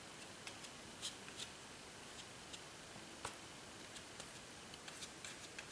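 Faint, irregular ticks and light scratching of a bristle brush spreading thick wood glue over a painting surface, over a low steady hiss.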